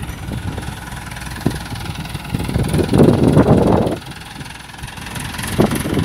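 Diesel engine of an ACE pick-and-carry crane running at idle, swelling louder for about a second and a half near the middle before dropping back.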